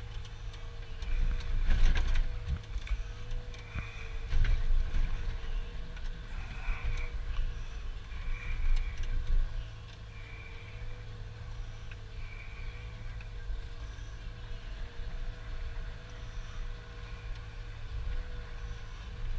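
Inside the cab of a John Deere forwarder: the engine runs steadily with a wavering hydraulic whine while the crane loads logs. Knocks and clatter of logs landing in the bunk come in the first half, loudest about two seconds in, and short high squeals recur every second or two.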